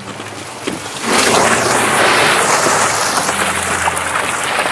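A mass of netted fish and seawater pouring into a wooden fish box on the boat, a loud rushing splash that starts suddenly about a second in and keeps on steadily. Under it is the low steady hum of the boat's engine.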